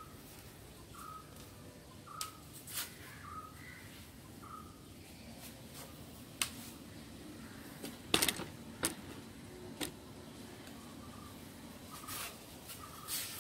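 A small bird chirping, short notes repeated about once a second, pausing mid-way and coming back near the end. Scattered clicks and knocks from items being handled, the loudest a quick cluster about eight seconds in.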